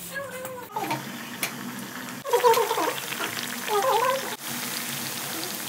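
Hot oil sizzling steadily as food deep-fries in a pot, with two drawn-out pitched cat meows over it about halfway through.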